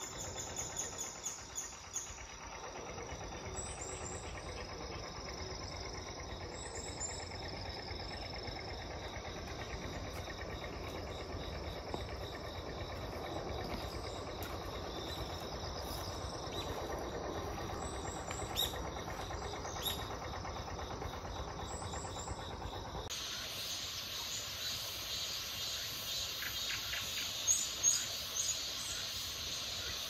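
Outdoor summer ambience: a steady background of insects with short, repeated high bird chirps. About two-thirds of the way in the background changes abruptly to a brighter hiss.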